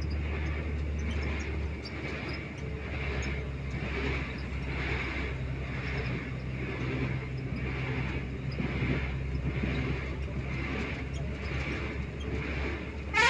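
A road vehicle's engine and tyres running steadily, heard from inside the cabin as a constant low drone. A short, loud horn blast sounds right at the end.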